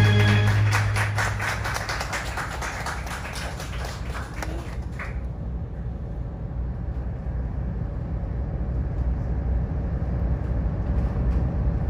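Cruise boat's engine running with a steady low rumble. Over it, a louder sound made of rapid strokes fades out in the first five seconds.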